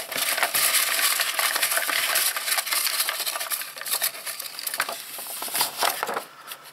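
Hand rummaging in a plastic bowl of draw lots under a loose paper-sheet cover: the paper rustles and crackles, and the lots rattle against the bowl with many small clicks, dying down over the last second.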